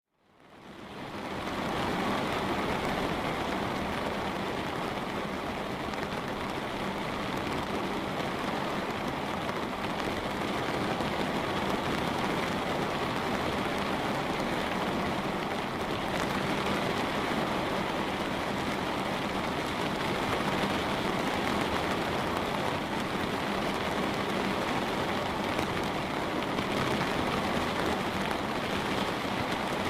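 Light rain falling steadily on a window pane, fading in over the first couple of seconds.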